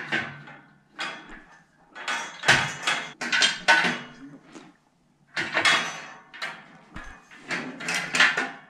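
Metal bed-frame slat rails clattering against the frame's metal side rails as they are slid in and dropped into their slots: a series of sharp metallic knocks and rattles in several groups.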